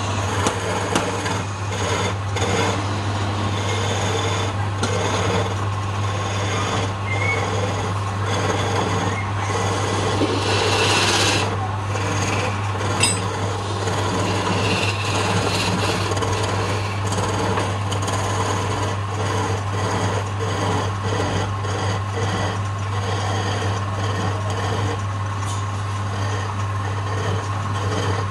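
Wood lathe running with a steady motor hum while a hand-held turning chisel scrapes and cuts the spinning wooden spindle, a continuous rasping with irregular scratchy strokes.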